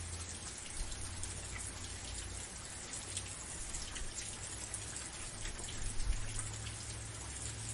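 Steady rain falling, a constant hiss dotted with individual drops ticking on a surface, over a low rumble, with a couple of louder drop thumps about six seconds in.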